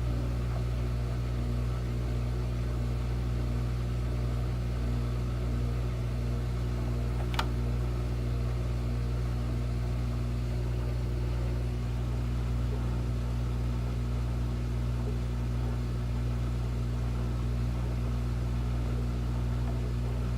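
Washing machine that won't spin, giving off a steady low electrical hum with no rise or fall in speed. One sharp click about seven seconds in.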